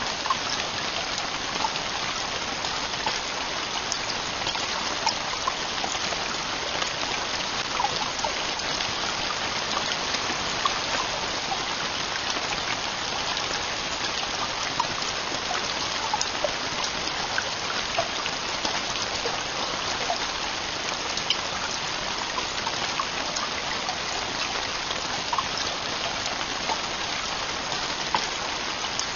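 Heavy rain falling steadily on a camping tent's roof, with individual drops ticking sharply here and there.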